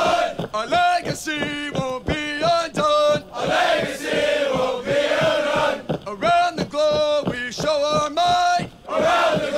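Marine Corps cadence sung call-and-response: a male lead sings a line and a group of voices chants it back.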